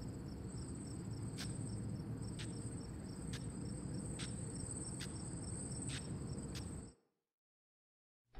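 Crickets chirring steadily at night, with a sharp tick a little less than once a second. The sound cuts out abruptly about seven seconds in.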